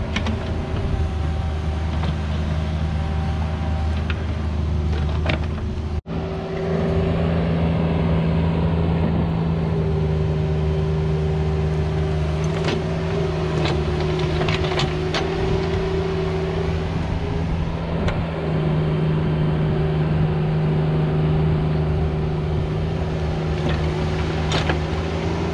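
Cat 304 mini excavator's diesel engine running steadily under hydraulic load while it digs a trench, with occasional sharp scrapes and knocks from the steel bucket in soil and stones. The sound drops out for an instant about six seconds in, then the engine note is a little stronger.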